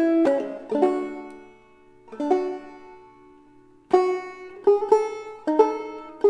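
Solo banjo picking an old-time tune: separate plucked notes that ring and die away. About two seconds in, one low note is left to fade for a second and a half before the picking starts again.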